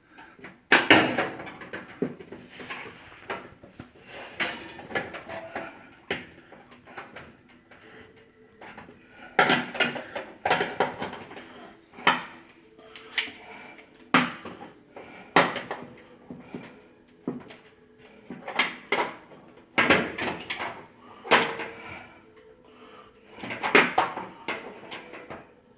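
Metal oven door hinges and door clanking and knocking again and again as they are worked and forced toward their slots; the hinge is hard to seat, and the repairman worries it is bent.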